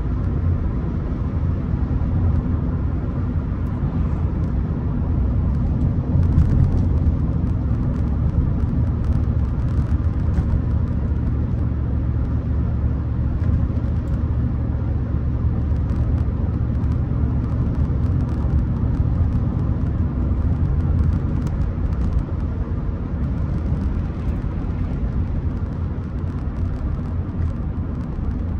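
Rolls-Royce Silver Spirit driving along at a steady pace: its V8 engine and the road make a low, steady rumble.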